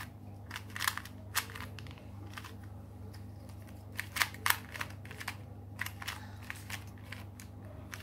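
A plastic 2x2 speed cube being turned fast by hand: quick, irregular clicks and clacks as the layers snap round, coming in short runs.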